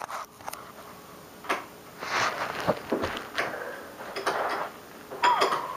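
Zoomer robot dog toy moving about, with clicks and short bursts of mechanical scuffling and whirring, then near the end a short electronic whimpering call that bends down and back up in pitch.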